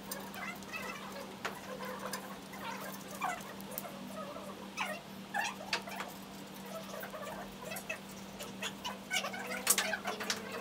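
Short metallic clinks and brief squeaks of a black wire pool-table ball-return rack being handled and fitted under the table frame, over a steady low hum.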